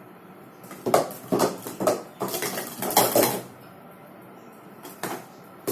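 Hard plastic sport-stacking cups clacking rapidly as they are stacked up and brought down in a timed run. The clatter starts about a second in and lasts about two and a half seconds.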